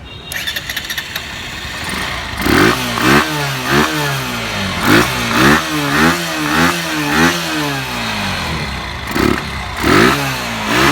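Bajaj Pulsar NS160's single-cylinder engine, breathing through a freshly fitted aftermarket Moxi air filter, revved in a quick string of throttle blips that rise and fall in pitch, settling to idle briefly before two more blips near the end. A short rattle comes just before the revving begins.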